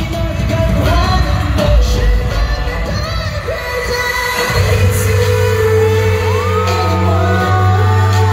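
Live K-pop concert music with singing and a heavy beat, heard from the audience in a large hall. About four and a half seconds in, the beat gives way to a long, sustained deep bass note under held and gliding vocal lines.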